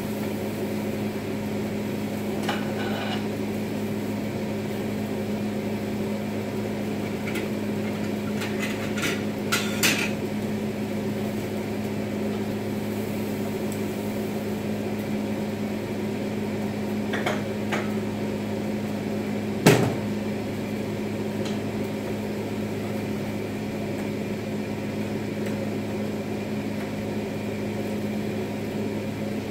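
Steady hum of an over-the-range microwave's vent fan, with scattered clinks and knocks of cookware on a gas stove. The loudest is a sharp knock about twenty seconds in.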